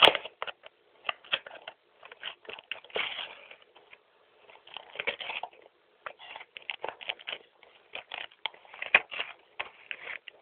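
Instant-coffee sachet packaging crinkling and crackling as it is handled close to the microphone: an irregular run of sharp crackles, loudest right at the start.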